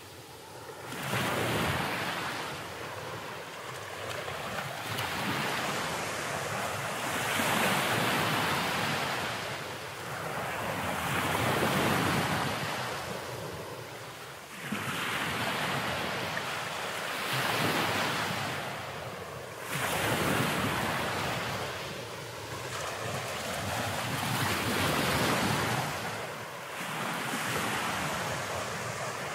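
Ocean surf breaking on the shore, the wash swelling and falling every few seconds, with strong wind buffeting the microphone.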